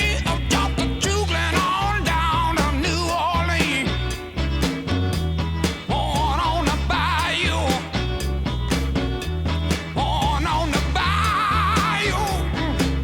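Background music: an upbeat rock-and-roll song with a steady bass and drum beat and a singing voice.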